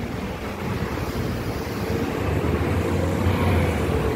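City street traffic with a bus's engine running as it drives along; the low engine hum grows louder about halfway through.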